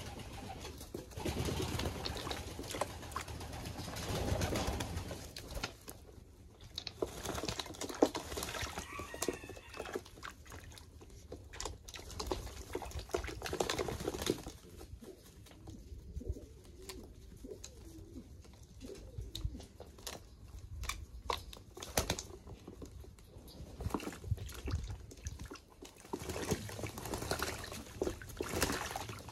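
English Modena pigeons bathing, splashing water and flapping their wings in irregular bursts, with low cooing in between.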